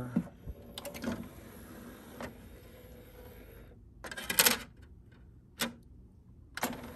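Sony CDP-C601ES five-disc CD changer: a button click, then the tray motor whirring steadily as the carousel tray slides open. About four seconds in comes a short loud clatter as a CD-R is set into the tray, then a sharp click, and another mechanical sound starts near the end.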